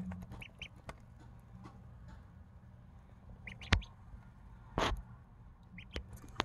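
Cayuga ducklings peeping softly, a few short high peeps, some in pairs, with light knocks and a couple of louder bumps near the middle.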